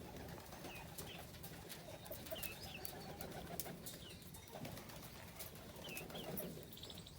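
Birds calling while feeding: short high chirps every second or two over a low, busy background of calls.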